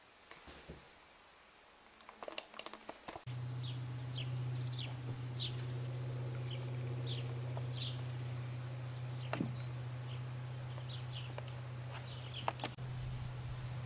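Small birds chirping, with many short, high, downward-sweeping notes, over a steady low hum that starts about three seconds in. Before that there is quiet room tone with a few clicks.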